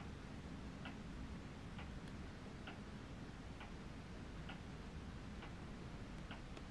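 Steady ticking, a little faster than one tick a second, over a low room hum.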